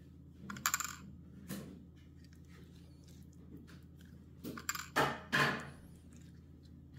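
Light clinks and short scrapes of a silicone basting brush against a ceramic bowl and the lobster shells while melted butter is brushed onto raw lobster tails, loudest as two quick scrapes about five seconds in, over a low steady room hum.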